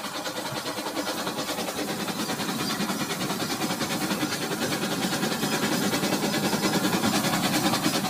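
Battery-powered toy train running on plastic track: a small electric motor whirring, with the wheels ticking rapidly over the track. It grows louder as the train approaches.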